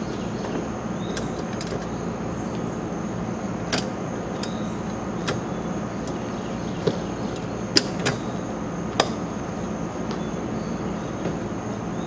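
Awning's metal mounting brackets and vinyl cover being fitted onto a truck's roof rack: several sharp clicks and knocks, the loudest in the second half, over a steady outdoor background hum.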